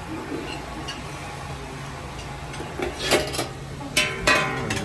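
Stainless-steel buffet chafing dish lids being handled and opened: a few sharp metal clinks with a brief ringing about three seconds in and again around four seconds in, over a steady low hum.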